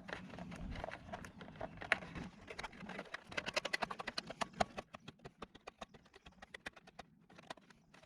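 Lock ring being screwed by hand onto the back of a USB charger socket, a quick run of small plastic clicks and ticks. The ticks are densest around the middle and thin out near the end, as the nut catches against the panel's sidewall and gets hard to turn.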